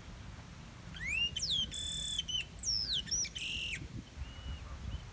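Chopi blackbird (pássaro-preto) singing: about a second in comes a rising whistle, then a string of loud falling slurred whistles, a held clear note and a short buzzy note, ending after about three seconds.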